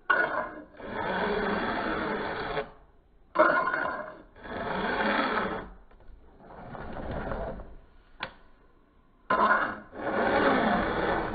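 Round chainsaw file scraping across a saw chain's cutter teeth in repeated push strokes, about one every one to two seconds, as the chain is sharpened by hand. A single sharp click sounds about eight seconds in.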